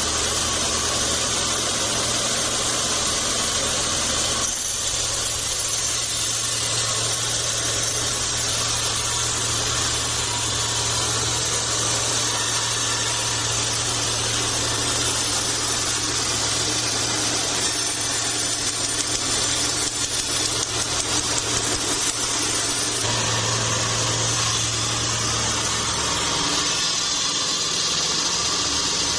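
Homemade band sawmill running steadily, a constant low hum under a hiss. The hum shifts about four and a half seconds in, grows louder around 23 seconds and drops back near 26 seconds.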